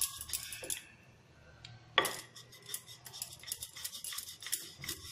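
Wooden rolling pin rolling out a thin round of dough on a hard countertop: a run of light clicks and knocks as it goes back and forth, with a sharper knock about two seconds in.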